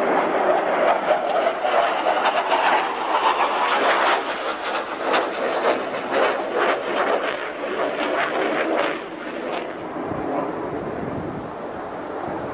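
Jet roar from the US Navy Blue Angels' four F/A-18 Hornets flying past in diamond formation: a loud rushing noise with crackle that drops off near the end.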